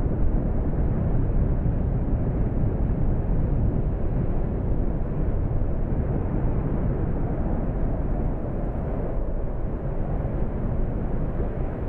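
Steady low rumble of Fagradalsfjall's erupting crater, with no separate bursts standing out.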